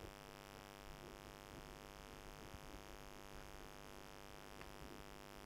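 Near silence with a steady electrical mains hum, and a few faint scattered ticks.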